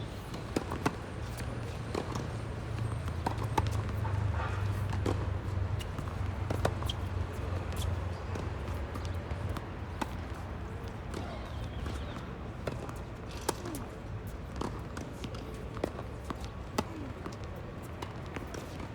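Tennis rally: sharp knocks of rackets striking the ball and the ball bouncing on the court, coming irregularly about once a second, over a low rumble.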